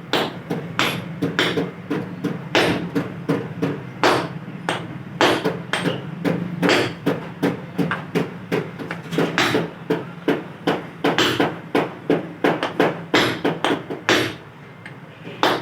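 Hammer blows on a socket, driving a new bearing into a belt adjuster (tensioner) pulley: a run of sharp metal strikes, about two a second, with a short pause near the end.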